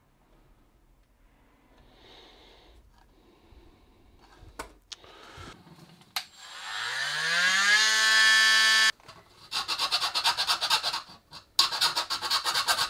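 A small electric power tool's motor spins up with a rising whine, runs steadily for about two seconds and stops suddenly. Then come two spells of rapid rasping, like a bit or rotary tool cutting into plastic. Light handling knocks come before it.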